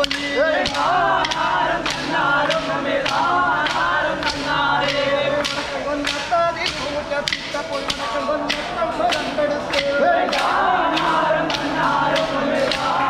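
A group of men singing a Bharani pattu in chorus, keeping time with sharp hand claps about twice a second.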